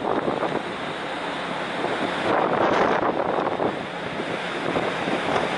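Wind rushing over the microphone on the open deck of a moving ferry, mixed with the wash of the sea. The noise is steady and swells for a second or so midway.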